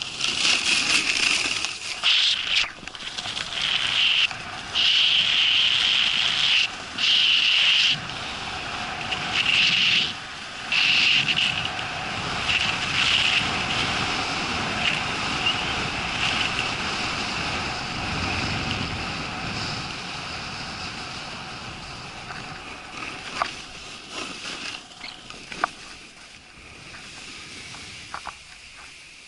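A snowboard running fast down a snow piste: the board hisses and scrapes over the snow in loud surges through the first ten seconds or so, with wind rushing over the microphone. The noise then eases and fades as the board slows, with a few sharp ticks near the end.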